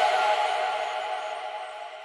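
Background music ending on a held chord that fades out steadily.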